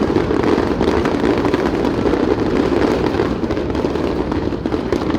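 Fireworks going off in quick succession, their bursts running together into a steady, dense rumble and crackle with no single bang standing out.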